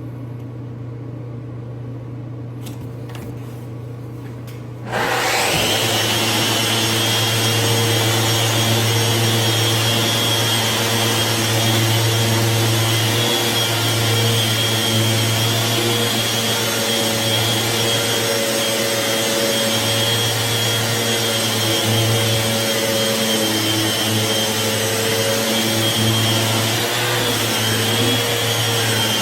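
A steady low hum, then about five seconds in an electric sander starts up and runs steadily, sanding a marble countertop. Its loud, even whir carries a few fixed whining tones.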